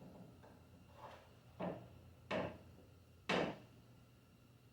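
A few sharp wooden knocks, one faint and then three clearer ones spaced well under a second apart, as wood or clamps are handled on the bench.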